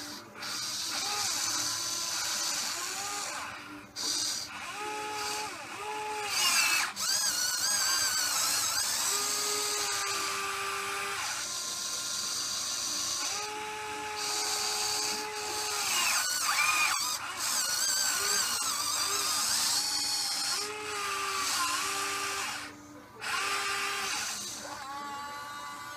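Huina 580 RC excavator's electric motors whining as it tracks and swings, the pitch rising, holding and falling with each move, with brief pauses between moves.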